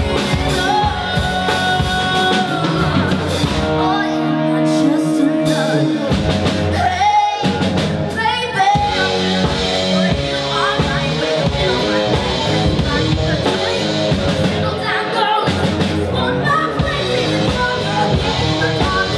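A woman singing a musical-theatre song live into a handheld microphone, backed by a band of piano, keyboard, guitars, bass and drum kit.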